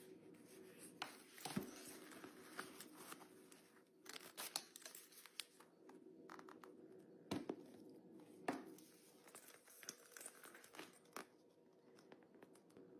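Faint handling noises of a pink faux-leather Sanrio wallet being turned over and opened: scattered crinkling, rustling and sharp little clicks, a few louder ones about a second and a half in and around seven and a half and eight and a half seconds in.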